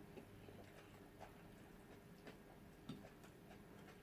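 Near silence: room tone with a few faint, short clicks spread through it.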